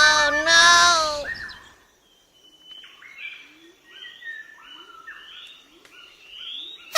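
Music fading out about a second and a half in, followed by birds chirping: a quiet run of short rising chirps, about two a second.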